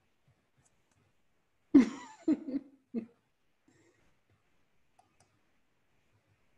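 A person coughing: three or four short bursts over about a second and a half, the first the loudest, in a small room with near silence around them.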